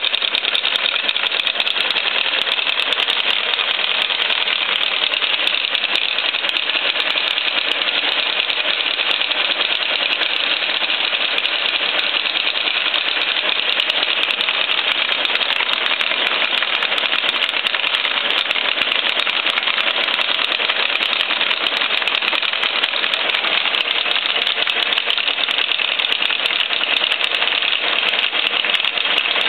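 Sandvik face mill on a Biernatzki milling machine cutting SAE 1045 steel at about 0.25 mm chip per tooth: a steady, dense clatter of rapid clicks as the cutter's teeth bite the steel, unbroken and even in level.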